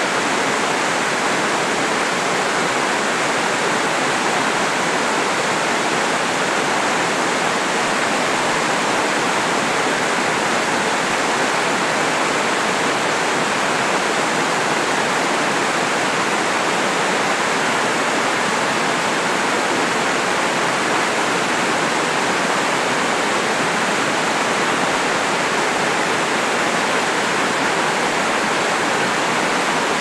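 Water rushing steadily down a wide, stepped cascade of rock ledges into a pool below: a loud, even waterfall roar with no breaks or changes.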